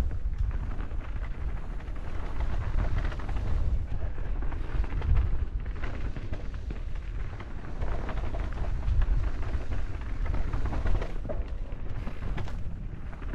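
Mountain bike riding down a dirt singletrack: a steady rumble of tyres on dirt and wind buffeting the action-camera microphone, with rapid rattles and knocks from the bike over bumps and roots.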